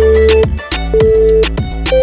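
Interval timer's countdown beeps, one a second and each about half a second long, the last one slightly higher, over background music with a steady beat.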